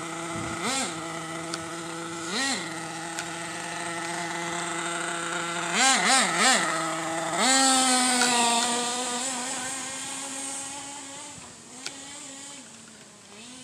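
Nitro engine of an OFNA RC monster truck idling high with short throttle blips, three in quick succession about six seconds in. Then it is held at a higher speed as the truck drives away, fading into the distance.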